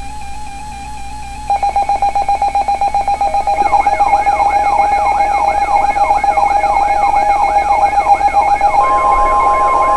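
Several electronic emergency alert tones layered over one another. A steady tone is joined about a second and a half in by rapid pulsing beeps, then by repeated rising whoop sweeps at about two to three a second, and near the end by a steady higher alarm tone.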